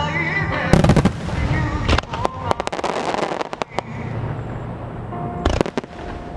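Starmine fireworks display: shells bursting with sharp bangs, loudest about a second in and again near the end, with a run of crackling between, over the show's music.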